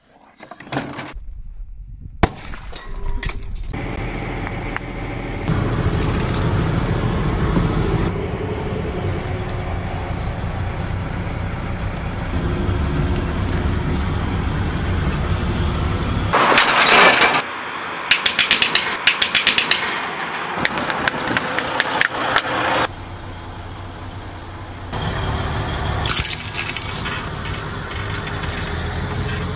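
A heavy steel train wheel rolls slowly along the rail with a steady low rumble, crushing objects with bursts of cracking and breaking. The loudest burst comes about 17 seconds in, followed by a quick run of sharp cracks. A single sharp crack comes about two seconds in.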